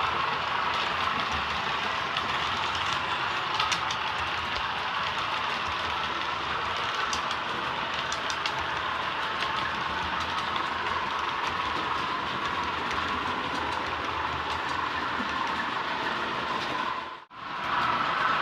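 Sound-fitted Bachmann Class 20 model locomotive running, its DCC sound decoder playing the diesel engine sound through a small onboard speaker that is thin, with little bass, mixed with faint clicks from the wheels on the track. The sound dips out briefly near the end.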